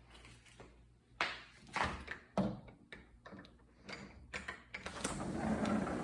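A series of sharp knocks and thumps, the loudest three in the first half, then from about five seconds in a steady hum with a rushing noise.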